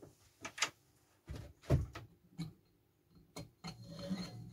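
Cylinder head of a 49cc Honda four-stroke moped engine being handled and slid onto the cylinder studs: a series of short metal knocks and clicks, the loudest about a second and a half in, then a brief scraping and rubbing near the end.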